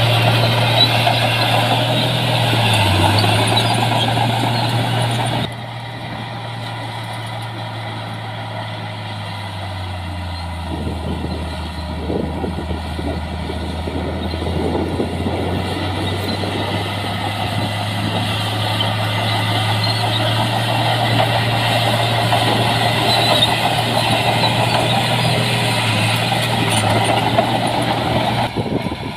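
Heavy diesel earthmoving machinery, a bulldozer and dump trucks, running under load with a steady engine drone and clattering. About five seconds in the sound changes abruptly to a lower engine note, which then rises back up.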